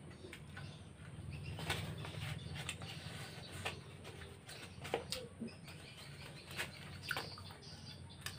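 Close-up eating sounds: chewing with scattered sharp mouth clicks, and a styrofoam food box being handled, over a low steady hum.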